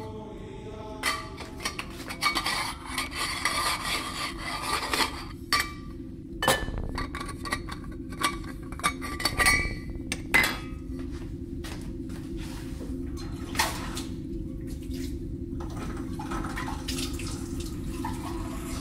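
Experimental music: a passage of percussion and noise effects made of sharp clicks and knocks, some ringing briefly, over a steady low drone. The knocking is dense in the first half and thins to a few scattered clicks after about ten seconds.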